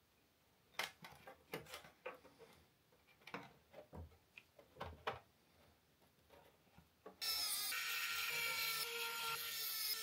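A series of sharp clicks and knocks as a metal shield plate is handled and pressed into place over an all-in-one PC's motherboard. About seven seconds in, background music starts abruptly and is louder than the clicks.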